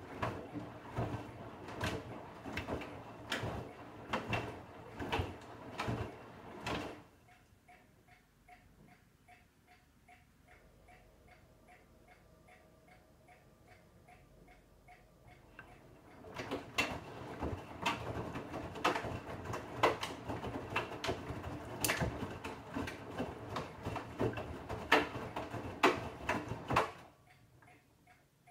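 Bosch Serie 8 front-loading washing machine in the wash phase: the drum turns with the wet laundry tumbling in rhythmic thuds, about one and a half a second. It pauses for about nine seconds, then turns again and stops near the end.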